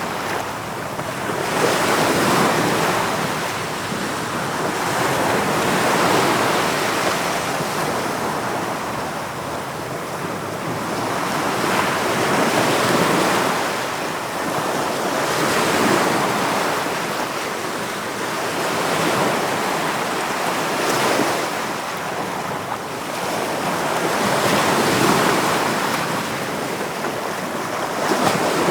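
Sea waves breaking on a shore and washing back, swelling and ebbing about every three to four seconds.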